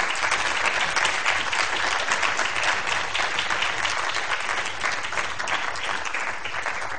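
Audience applauding: dense clapping from many hands, easing off a little near the end.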